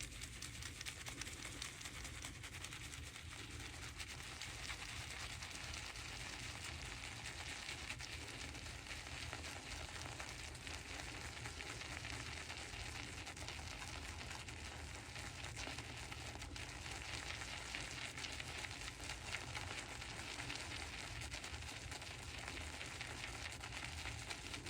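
Shaving brush working up wet lather from shaving soap: a steady, wet, fizzing swish.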